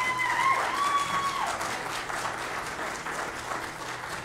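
Audience applauding steadily. In the first second and a half, two short, high, rising whoops ring out over the clapping.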